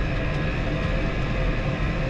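A vehicle engine running at a steady speed: a continuous low rumble with a steady hum of several tones over it.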